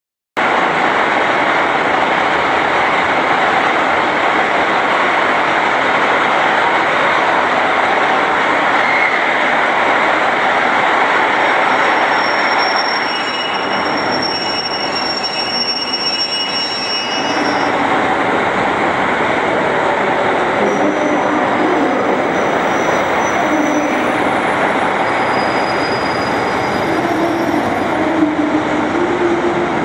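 A train running slowly alongside a station platform, its wheels rumbling and grinding on the rails. Thin high-pitched wheel squeals come and go near the middle, and a low hum rises and falls toward the end.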